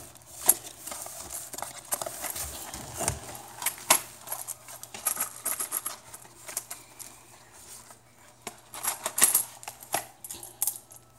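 Handling a small cardboard box of .357 Magnum cartridges: packaging rustling and scattered clicks as the box is opened, then a quick run of metallic clinks near the end as the brass cartridges in the tray knock together.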